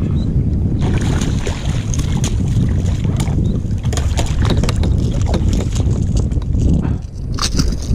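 Wind buffeting the microphone over water splashing and sloshing around a kayak, with many irregular small splashes from about a second in.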